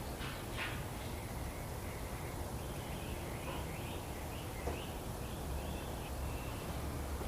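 Steady low background rumble with small birds chirping now and then, the chirps busiest through the middle.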